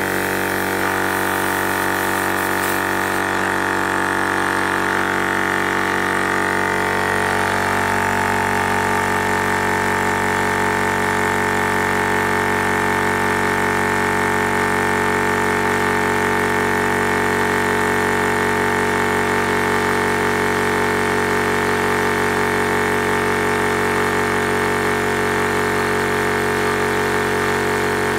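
Zhongyan electric PCP airgun compressor running steadily under load, pumping up a high-pressure air tank toward 20 MPa (3,000 psi).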